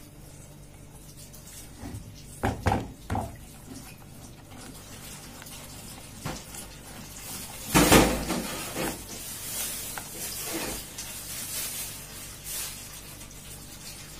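A spoon stirring and scraping a cocoa, sugar and milk mixture in a small pot on the stove while the sugar dissolves. There are a few clinks against the pot two to three seconds in and a louder clank about eight seconds in.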